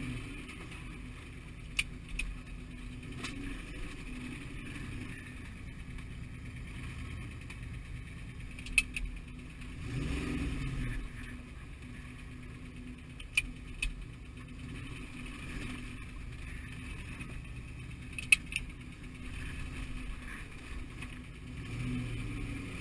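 A vehicle's engine running steadily while cruising, heard from on board, with four sharp clicks spread through.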